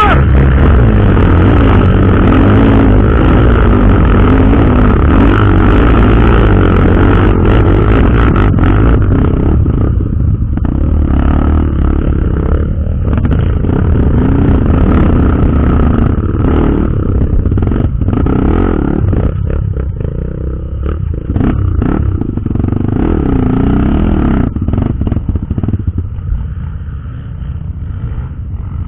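Trail motorcycle engine running under load, its revs rising and falling, with rattling and knocks from riding over rough ground. It grows somewhat quieter near the end.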